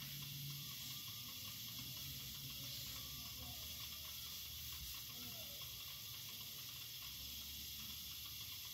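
Steady faint hiss of room tone, with no distinct strokes or knocks standing out.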